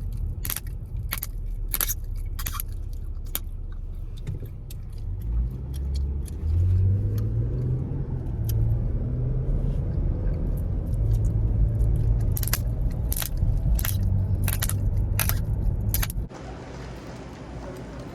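Chewing gum being cracked in the mouth: a series of sharp snaps, one every half second or so, in two runs near the start and again near the end, over a steady low rumble that drops away suddenly near the end.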